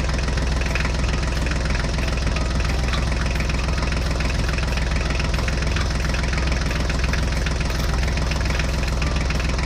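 Tractor engine running steadily at an even speed, a heavy engine sound with no change in pace or level.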